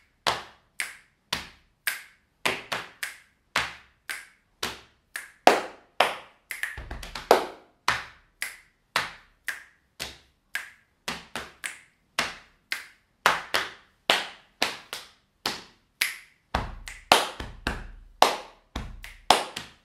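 Solo body percussion played as a steady rhythmic pattern: finger snaps, hand slaps on the thighs and hand claps in quick succession. A few deeper thumps come about a third of the way in and again near the end.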